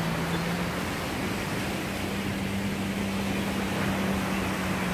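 Small lake waves washing onto a sandy shore, with wind on the microphone and a steady low hum underneath.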